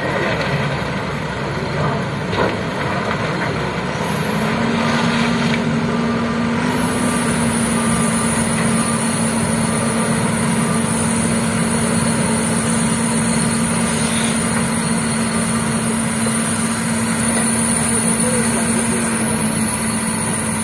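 Diesel engines of JCB backhoe loaders running during a heavy recovery job; about four seconds in, one engine rises to a steady hum and holds it.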